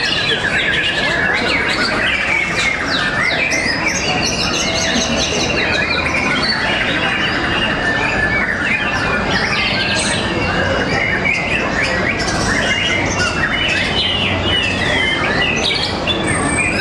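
Caged white-rumped shamas (murai batu) singing in competition, many rapid, overlapping phrases of whistles and trills going on without a break over a steady low background din.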